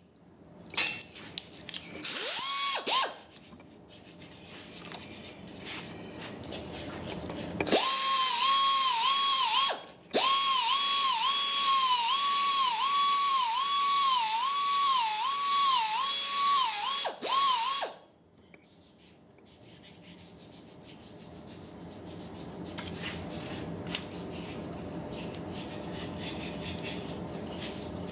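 Small handheld belt sander sanding the wooden cup's handle: a brief run about two seconds in, then a high whine from about eight seconds in for some ten seconds, cutting out once briefly, its pitch dipping again and again as it is pressed against the wood. After it stops, a knife scrapes and shaves the wood more quietly.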